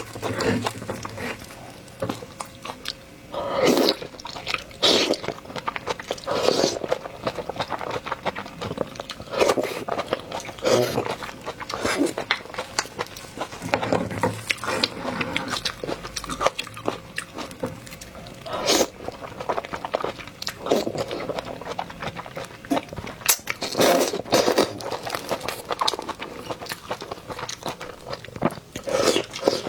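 Close-miked eating of seafood: irregular wet chewing and crunching, with louder bites every few seconds.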